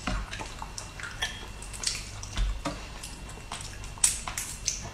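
Boiled prawns being peeled by hand: scattered small wet crackles and clicks as the shells come away, with a couple of dull thumps.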